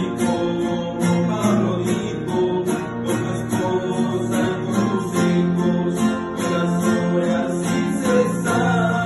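Acoustic guitars played together: chords strummed in a steady rhythm, about two strokes a second, with sustained notes over them.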